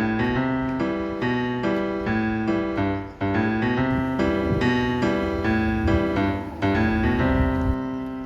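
Background music: a piano melody with chords played at a gentle pace, ending on a held note that fades.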